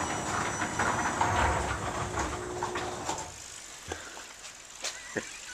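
Electric garage door opener running and the door rolling up, a steady mechanical noise that stops about three seconds in, followed by a few light knocks.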